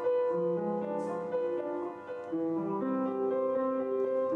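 Piano playing a slow piece, held notes and chords changing every half second or so.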